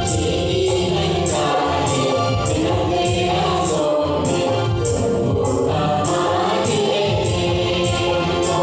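Choir singing a Christian devotional song to music, with a steady high jingling percussion beat about twice a second.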